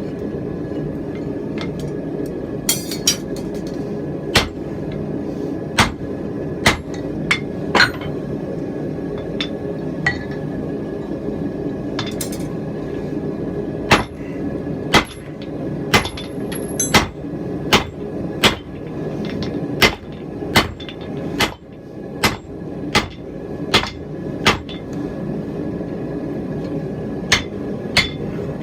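Hand-hammer blows on a hot steel rounding-hammer head on the anvil as its faces are forged round. The strikes are sharp and come irregularly at first, then more often and more evenly about halfway through, over a steady low rumble.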